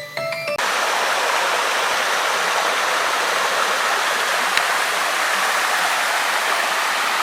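Small waterfall: water rushing steadily, coming in as background music cuts off about half a second in.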